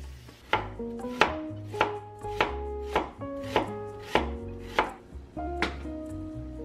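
A Chinese cleaver slicing fresh ginger on a wooden cutting board: about ten even knife strokes, each a sharp knock on the board, roughly one every half second or so, stopping a little before the end.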